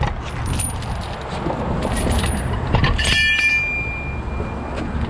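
Heavy tow truck's diesel engine running steadily under rustling handling noise, with a sharp metal clink from the steel recovery rigging about three seconds in that rings on briefly.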